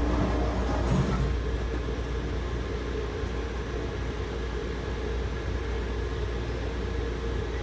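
Steady low hum of a Taipei Metro Wenhu line train's onboard equipment heard from inside the car while the train stands still, with a faint steady tone over it.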